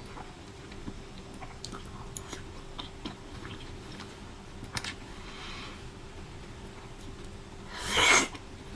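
Close-up eating sounds: chewing and small wet mouth clicks while eating fruit. About eight seconds in comes one short, loud rushing noise, the loudest sound in the stretch.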